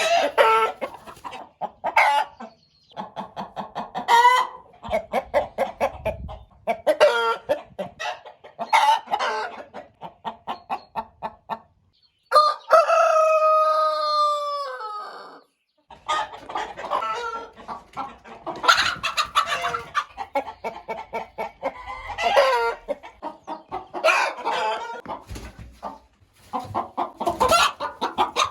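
Chickens clucking, a steady run of short calls, with a rooster crowing about twelve seconds in: one long call lasting about three seconds.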